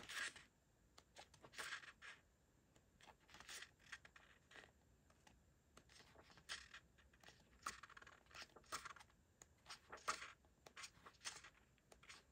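Faint rustling and swishing of sheets of scrapbook paper being leafed through and handled, a string of short soft strokes every half second or so.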